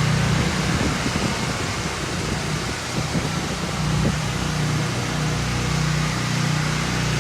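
Pressure washer engine running steadily, with the hiss of high-pressure water spraying from a surface cleaner onto concrete.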